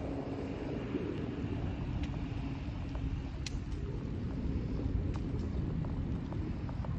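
Low road rumble and wind buffeting on a handlebar-mounted phone while a folding bike rolls along asphalt, with a few sharp ticks and rattles from the bike about 2, 3.5 and 5 seconds in.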